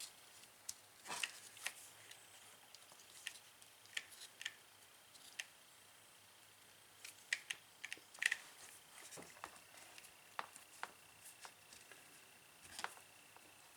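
Faint, irregular light clicks and taps of small parts and a hand tool being handled on an opened electric drill, a dozen or more scattered knocks. A faint steady high whine sits underneath.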